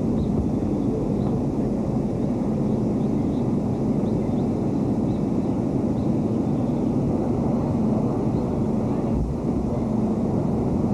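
Steady low rumbling outdoor background noise with a faint hum, unbroken and even in level.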